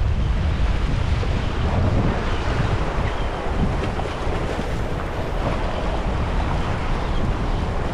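Wind buffeting the microphone over the steady wash of sea waves against a rocky shore.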